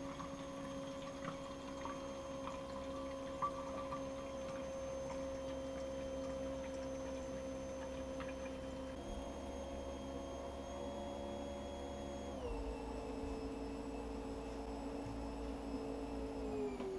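Fuel pump running steadily under a pressure of about 7 atmospheres with a humming whine, while fuel runs into a bottle. Its pitch steps down about twelve seconds in and starts sliding lower near the end.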